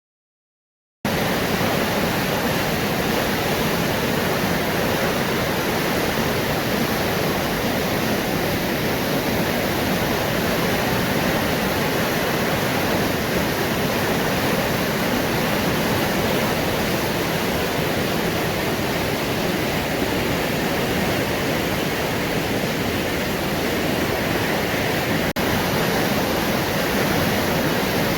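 Steady rushing of river water over rapids, an even, unbroken noise that cuts in suddenly about a second in.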